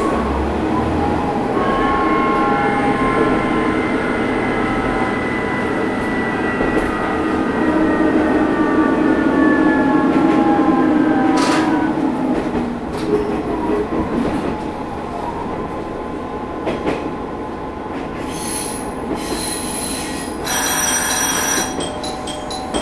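Matsuura Railway MR600 diesel railcar running, heard from on board, with rail and wheel noise and several high tones that fall slowly in pitch over the first half. The noise eases about halfway through, and a short loud burst comes near the end.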